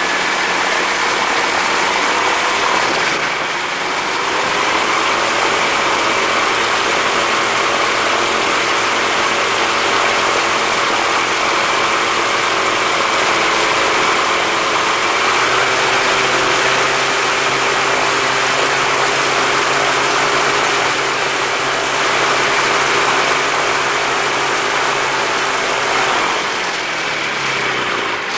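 X'Air microlight's engine and propeller running at high power in a static rpm test, with a strong rush of propeller air over the engine note. The pitch shifts a couple of times, and the engine winds down near the end. With the re-pitched propeller it reaches only about 5900 rpm: not enough power.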